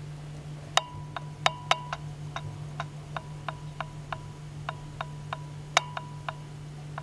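A run of light, sharp ticks, about three a second and not quite even, starting about a second in, some with a short metallic ring, over a steady low hum.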